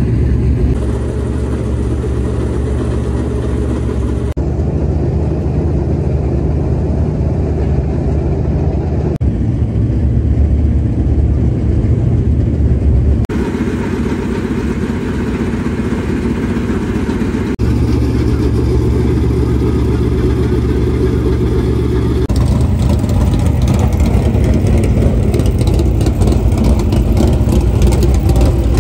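Dirt late model race cars' V8 engines running loud, with the sound changing abruptly every few seconds.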